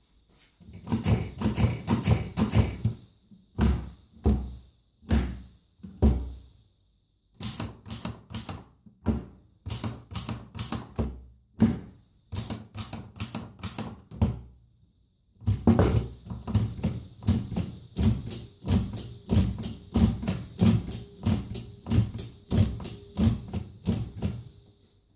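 Typing on a Corona folding typewriter: runs of sharp key strikes, several a second, with short pauses between the runs.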